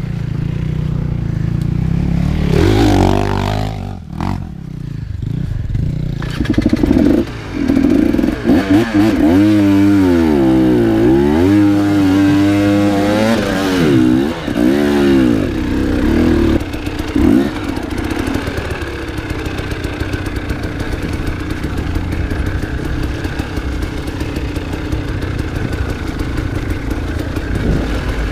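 Enduro motorcycle engine under hard riding, its revs climbing and falling again and again through the middle, then settling to a steadier note near the end.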